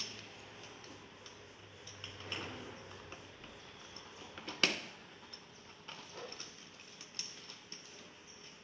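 Plastic pieces of a Play-Doh ice cream playset being handled: light scattered taps and clicks, with one sharper click about halfway through.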